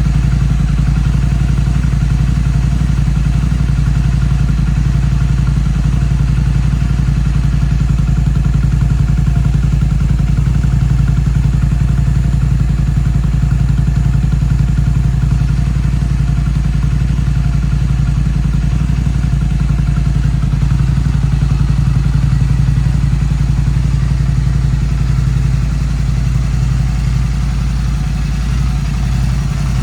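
Royal Enfield Continental GT 650's 648 cc parallel-twin engine idling steadily through a Red Rooster aftermarket exhaust. The level eases off slightly near the end.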